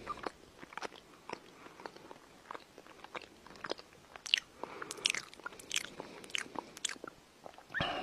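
A person chewing crunchy food close to the microphone, with irregular crisp crunches about three or four a second.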